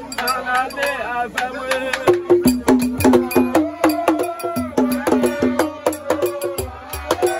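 Haitian Vodou ceremonial music: a group of men singing, joined about two seconds in by peg-tuned barrel drums played by hand and a sharp clicking beat, keeping a quick steady rhythm.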